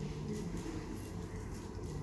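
Steady low hum of a lecture hall's room noise, with faint scattered ticks.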